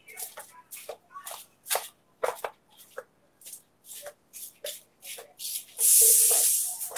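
Scratchy rustling of a hand-held smartphone being handled close to its microphone: a string of short clicks and scrapes, then a louder hiss of about a second near the end.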